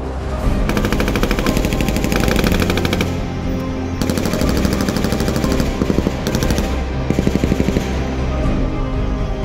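Automatic weapons fire in rapid bursts, about four of them, with the longest near the start, over background music.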